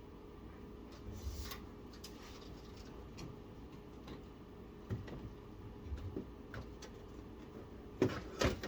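Scattered light clicks, taps and rubbing of PC case parts being handled and fitted, with two sharper knocks near the end, over a faint steady hum.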